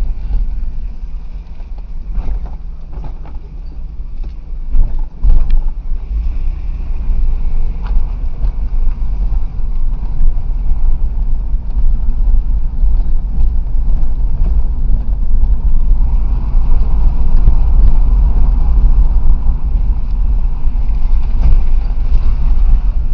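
Car driving along a street, heard from inside: a steady low rumble of engine and road with the microphone buffeted, and a couple of sharp knocks about five seconds in.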